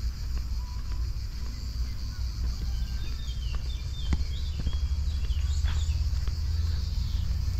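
Steady high-pitched insect chorus, with a few short bird chirps near the middle, light footsteps on a paved path and a steady low rumble.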